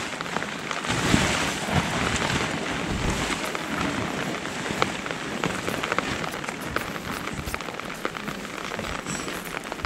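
Rain pattering on a Snowline tent's fabric fly: a steady hiss of many small drop ticks.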